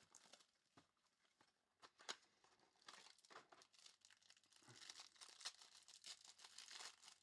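Faint crinkling and tearing of a trading-card pack wrapper being handled and opened, with soft scattered clicks of cards.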